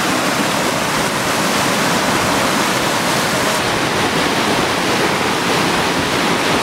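Whitewater rapids rushing in a steady, loud roar of foaming water pouring over a river standing wave.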